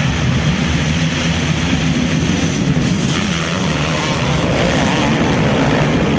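A full field of motocross bikes revving hard together as they launch off the start gate, a loud massed engine din. The pack sweeps past close by about three seconds in.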